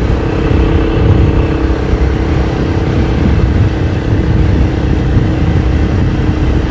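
Motorcycle engine running at a steady pitch while riding along a road, under a heavy low rumble of wind on the microphone.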